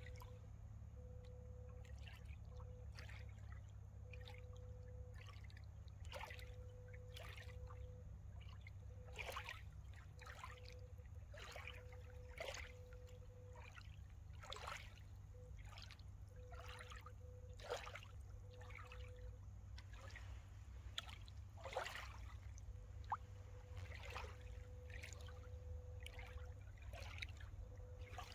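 Small waves lapping gently against a rocky lakeshore: soft, irregular splashes and trickles about once a second, quiet throughout.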